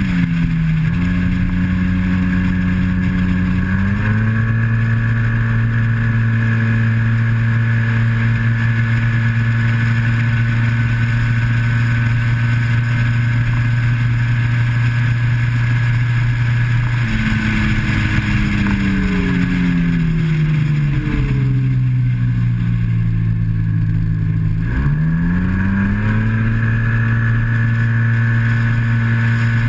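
Yamaha TMAX maxi-scooter's parallel-twin engine running at high, steady revs under load, held there by its CVT, over rushing wind. The revs dip briefly about a second in. A little past halfway the pitch falls away over several seconds, then dips sharply and climbs quickly back to the steady pitch about five seconds before the end.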